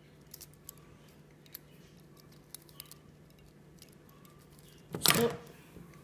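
Faint scattered clicks of a plastic twisty puzzle being turned by hand, then a louder knock and rattle about five seconds in as the puzzle is put down on the table.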